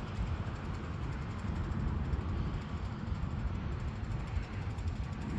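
Outdoor wind rumbling and buffeting on the microphone, mixed with the steady rush of nearby road traffic.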